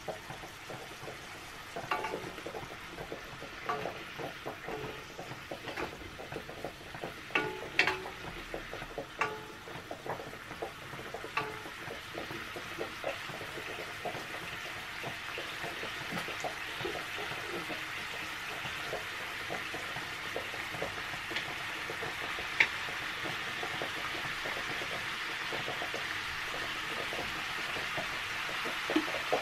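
Mushrooms sizzling in a frying pan, stirred with a wooden spatula that clicks and knocks against the pan every second or so during the first half; after that the sizzle runs on steadily with only a few clicks.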